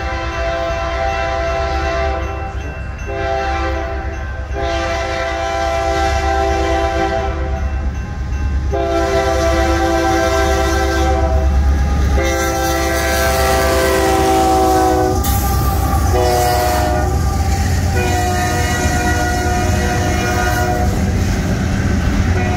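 Freight locomotive's multi-note air horn blowing a run of long blasts for a grade crossing, over the rumble of the train growing louder as it nears and passes. The horn's notes shift partway through as the locomotive goes by, and intermodal well cars clatter past at the end.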